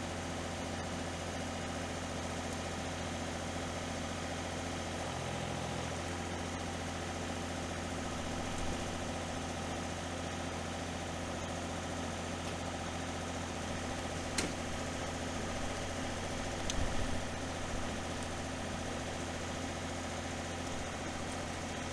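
Excavator's diesel engine running steadily, with one sharp click about fourteen seconds in and a brief low thump a couple of seconds later.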